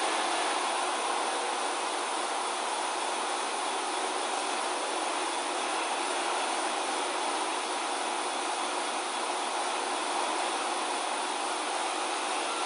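Steady office ventilation noise: an even, unchanging rushing hiss with a faint hum under it. The grooming mantis itself makes no audible sound.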